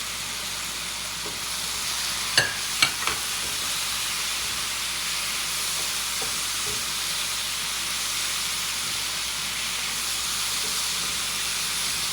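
Chicken and mango in sweet and sour sauce sizzling in a hot pan as green onion is stirred in: a steady hiss, with three sharp knocks of a utensil against the pan between two and three seconds in.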